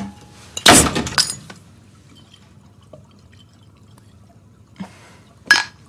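Glass beer bottle opened about a second in: the crown cap comes off with a sharp, loud hiss of escaping gas. Two short, fainter sounds follow near the end.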